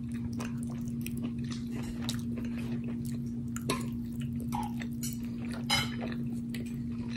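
A person chewing a mouthful of soft food with lips closed: soft wet mouth sounds and small clicks, with a brief sharper sound a little before the end. A steady low hum runs underneath.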